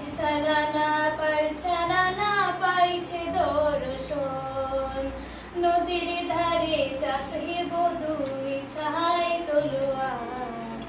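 Background music: a song with a woman singing long, wavering notes over a steady low accompaniment.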